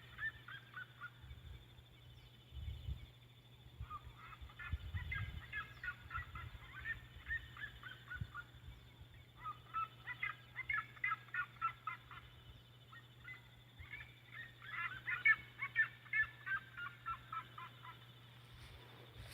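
Red-legged seriema calling in bouts of rapid, high notes that rise and fall, four bouts a few seconds apart.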